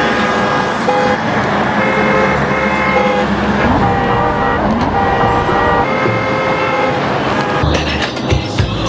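Busy road traffic with car horns honking again and again, short steady blasts at different pitches over a dense rush of traffic noise.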